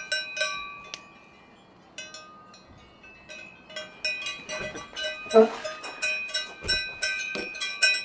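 Bells on grazing livestock clanking irregularly, many ringing strikes overlapping, with a short lull about a second in.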